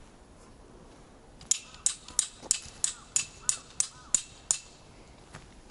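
A regular series of about a dozen sharp, ringing strikes, roughly three a second, starting about a second and a half in.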